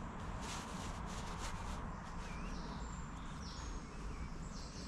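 Woodland birds chirping in short high whistles over a steady background hiss, with a few brief rustles in the first second and a half.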